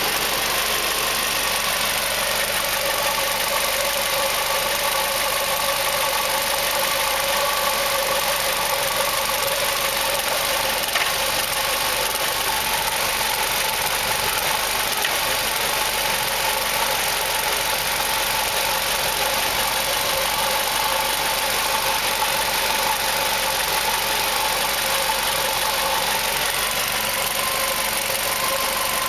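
2005 Ford Focus 2.0 Duratec inline-four idling steadily but rough, a sign the owner takes for a lean-running condition whose cause he cannot pin down: an exhaust leak, a plugged catalytic converter or a bad O2 sensor.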